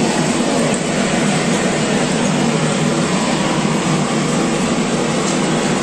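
Gas blowtorch flame burning steadily with an even rushing hiss as it singes the hair off a slaughtered goat's hide.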